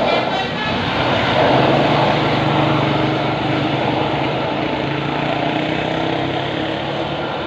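Heavy diesel engine of a bus or truck labouring up a steep incline, a loud steady drone under load, with the last notes of a musical telolet horn fading in the first moment.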